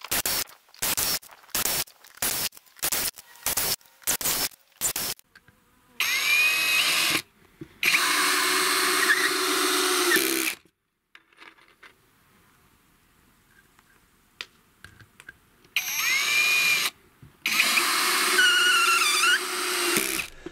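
Greenworks GD24DD60 brushless cordless drill-driver driving 45 mm self-tapping screws into a timber beam. A quick string of short runs, about two a second, fills the first five seconds, then come several longer runs of a few seconds each, each opening with a rising whine. A quieter stretch in the middle holds only a few faint clicks.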